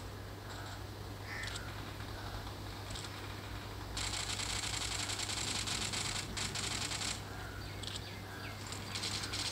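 Animal calls: short high-pitched calls, then a rapidly pulsing high chatter lasting about three seconds from about four seconds in, over a steady low hum.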